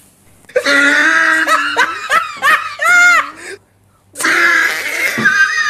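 Women laughing loudly, with high, drawn-out squeals of laughter; it breaks off abruptly about three and a half seconds in and starts again half a second later.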